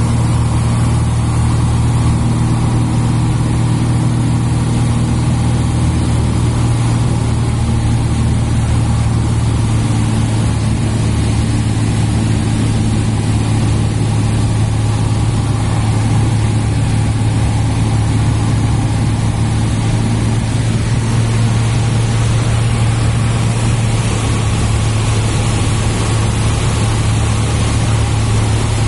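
Cessna 172's engine and propeller running steadily in flight, heard inside the cabin as an even, low drone.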